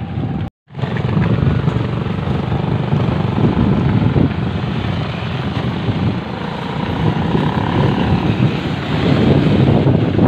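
Motorcycles and motorized tricycles running nearby, mixed with wind rumbling on the phone's microphone. The sound drops out completely for a moment about half a second in.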